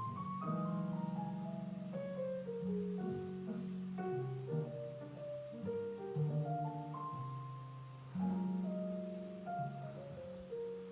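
Background music: soft melody of mallet or keyboard notes, such as vibraphone or piano, with a low bass line.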